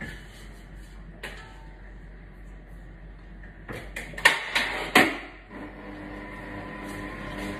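Light knocks and handling sounds at a mixing bowl, then two loud clattering clunks about four and five seconds in; about five and a half seconds in, a stand mixer's motor starts and runs steadily, kneading a stiff tortilla dough with its dough hook.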